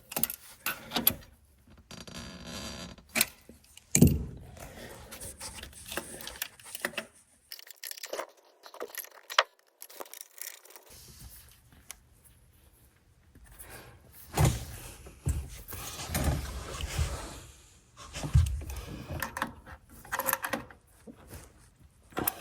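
Irregular metallic clinks, knocks and scrapes of hand tools working a stainless steel pipe-thread fitting on a boat engine, with a few louder knocks and a quiet pause in the middle.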